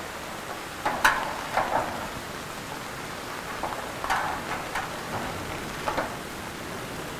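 Steady rain hissing down. Scattered sharp taps and knocks sound over it, the loudest about a second in.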